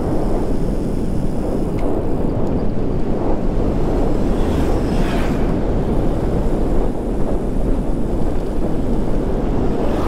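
Steady wind noise rushing over a handlebar-mounted action camera's microphone while riding a hybrid bicycle, with a brief brighter hiss about halfway through.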